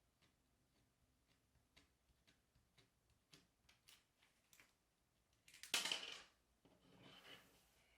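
Faint small clicks and taps of small tools on the parts of a film camera's switch as it is taken apart, then a louder brief scrape about six seconds in, followed by a softer one.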